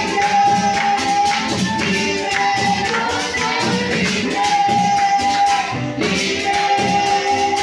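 Live church worship music: keyboard and singing over a steady beat of shaken percussion.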